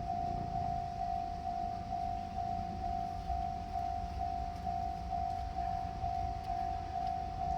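Japanese railway level crossing alarm ringing: one high electronic bell tone repeating evenly, about twice a second, over a low rumble.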